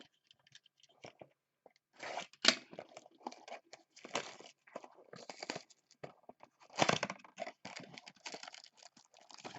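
Trading-card packaging being torn open by hand: cardboard and foil pack wrappers ripping and crinkling in irregular bursts from about two seconds in, with the sharpest rips about two and a half and seven seconds in.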